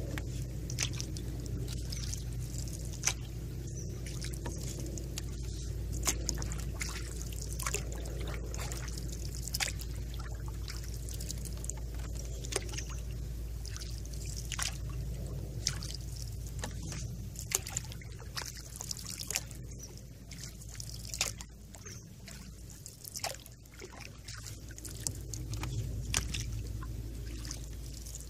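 Water trickling and dripping around a gliding canoe, with many scattered sharp drip ticks over a low steady rumble.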